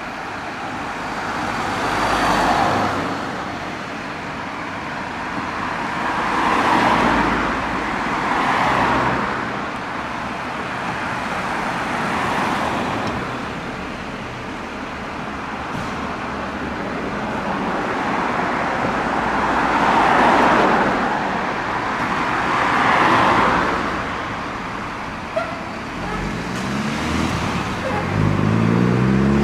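Road traffic going by, several vehicles one after another, each swelling and fading. In the last few seconds a Dennis Sabre fire engine's diesel engine rises in pitch in steps as it revs to pull out of its bay.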